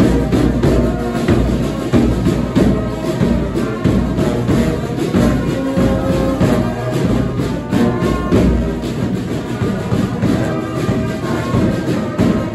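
Brass band playing: trumpets, trombones and tuba sounding together over a bass drum and snare drums that beat a steady rhythm.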